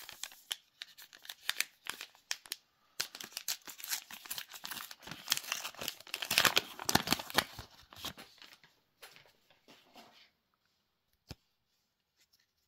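Foil wrapper of a trading-card booster pack being torn open and crinkled, a dense crackling that is loudest a little past the middle and stops about ten seconds in, followed by a single sharp tap.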